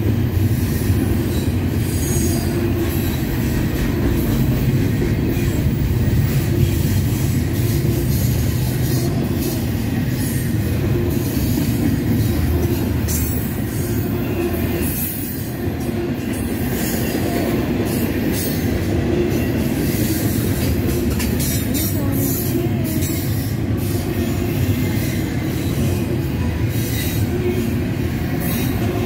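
Double-stack container well cars of a freight train rolling past close by: a steady low rumble of steel wheels on rail, with irregular sharp high squeaks and clanks.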